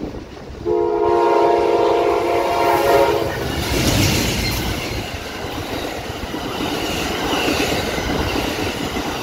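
Amtrak P42DC diesel locomotive sounding its horn in one long multi-note chord of about two and a half seconds as it approaches. The locomotive then passes close by, followed by the Superliner cars rolling past with wheels clacking over the rail joints.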